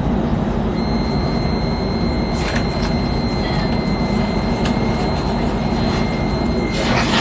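X10 electric commuter train running, a steady low rumble with a few clicks, overlaid by a steady high whine from about a second in until near the end. A short, loud hissing burst comes right at the end.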